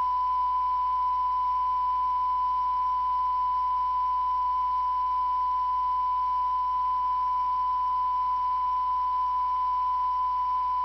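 Broadcast test tone playing with the colour bars at a TV station's sign-off: one steady, unwavering pure beep held without a break, with a faint hiss and a low hum underneath.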